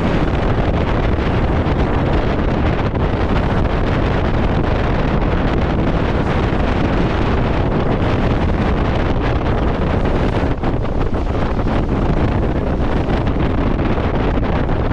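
Heavy wind buffeting the microphone over the steady rush of water and spray along the hull of a 60-foot Symbol motor yacht running at speed through choppy seas.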